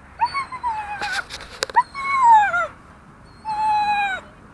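Young dog whining three times in high cries, each falling in pitch, the second the loudest: a frightened dog that balks on the leash.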